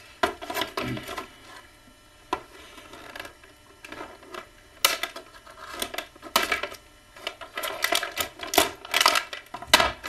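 Plastic toy packaging crackling and snapping in irregular clicks as it is handled and forced apart to free an action-figure accessory, the crackles coming thicker near the end.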